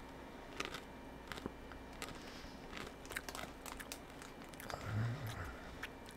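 Mouth chewing crunchy soy-sauce-coated peanut crackers: soft, scattered crunches, with a short low hum about five seconds in.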